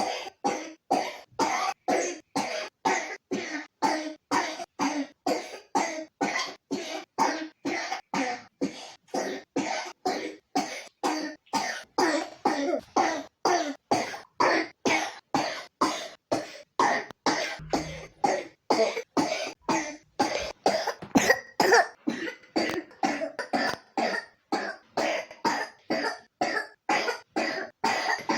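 A three-year-old child with pneumonia coughing in a long, unbroken run of short, sharp coughs, about three a second.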